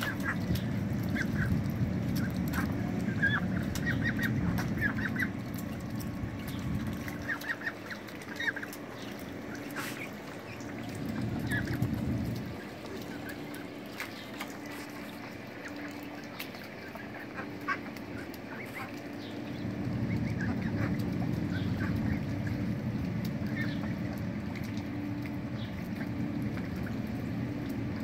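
Domestic ducks calling in short quacks and splashing as they bathe in a tub of water, the calls thickest in the first few seconds. A low hum comes and goes under them, strongest at the start and again in the second half.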